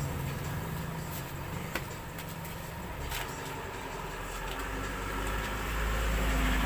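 Low background rumble that swells toward the end, with a few faint clicks.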